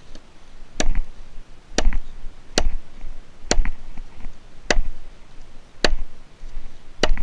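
Gränsfors Bruks mini hatchet biting into the end of a driftwood cedar log, seven sharp wooden strikes about a second apart, to start a split along the log.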